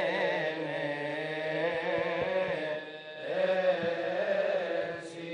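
A man's voice chanting the Gospel in Coptic to the church's liturgical tune, drawing out long melismatic notes that waver up and down. The voice drops away briefly about three seconds in, then resumes.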